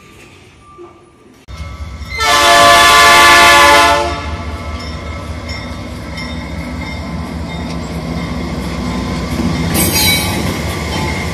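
A GE AC44 diesel-electric locomotive sounds its multi-tone air horn in one loud blast of about two seconds, starting about two seconds in. Its engine then runs steadily as it pulls the train past, with wheels clicking over the rail joints.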